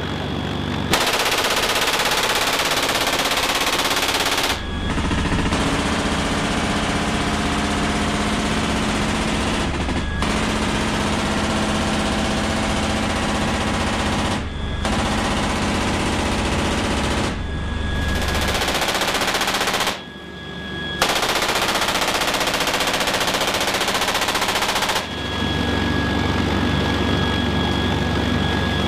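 GAU-21 .50-caliber machine gun firing long sustained bursts, several seconds each, with short pauses between them. It fires from the open ramp of a CH-53K King Stallion helicopter, whose steady rotor hum and turbine whine carry through the pauses and are heard alone from a few seconds before the end.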